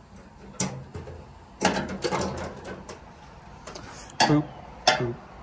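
A few sharp clicks and knocks of a screwdriver and the dryer's sheet-metal cabinet being handled during disassembly: one about half a second in, one after a second and a half, and two close together past four seconds.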